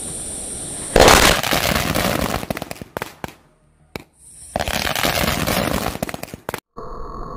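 Dozens of bijli bomb firecrackers bursting in a rapid, dense crackle as they set each other off in a wok heated on a gas burner. The cracking starts suddenly about a second in and thins out, then a second dense run of cracks follows midway and stops abruptly.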